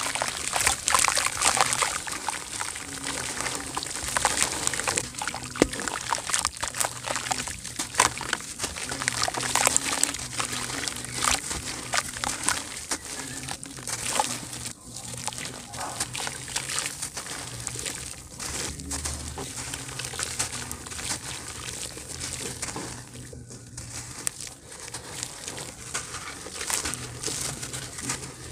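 Dry sand-cement and dirt chunks crumbled between the hands, gritty crumbs and powder pouring down onto a pile in a basin with a dense, continuous crackle of many small grains landing.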